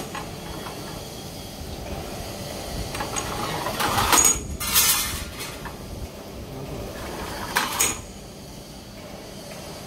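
CNC grinding machine for bearing inner rings running with a steady background noise, broken by a few short clinking, hissing bursts: the loudest about four seconds in, another just after it, and one more near eight seconds.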